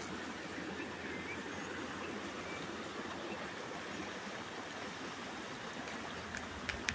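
Steady rush of a shallow stream running over its rock bed. Two or three sharp clicks come near the end.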